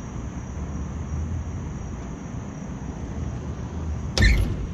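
Rooftop HVAC unit running on test with its new blower-motor belt: a steady low mechanical rumble. A short, sharp knock comes near the end.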